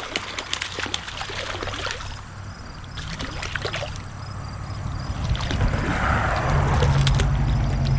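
Shallow creek water splashing and sloshing, with scattered knocks, growing louder over the last few seconds: a hooked trout being fought in on a tenkara rod.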